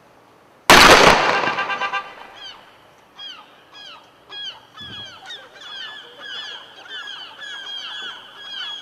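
An M80-type firework exploding inside a watermelon: one sharp, very loud blast less than a second in, dying away over about a second. From about two seconds after it, geese honking over and over, several calls a second.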